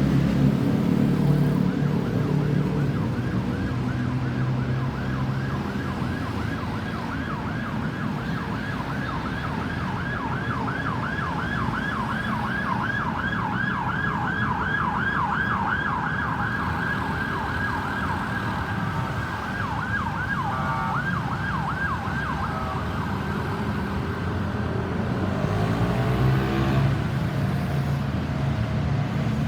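Ambulance siren on its yelp setting: a fast rising-and-falling wail repeating several times a second over road-traffic noise. It fades out about two-thirds of the way through.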